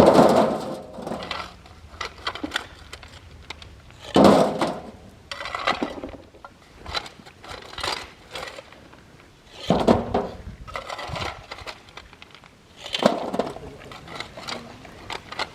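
Rocks being dropped and tumbled into a gabion cage onto other stones: four loud clattering crashes a few seconds apart, with smaller knocks of stone on stone between them.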